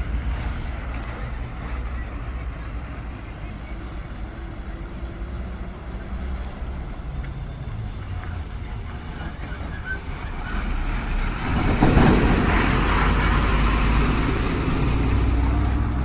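Heavy truck traffic on a highway: a steady low engine rumble, then about eleven seconds in a loud rush of engine and road noise swells up and holds for a few seconds before easing off near the end.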